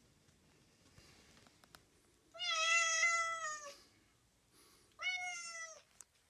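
Domestic cat meowing twice: a long meow lasting over a second, then a shorter one near the end, each dropping in pitch as it ends.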